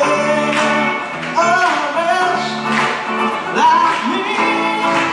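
A voice singing a gliding melody over strummed acoustic guitar chords.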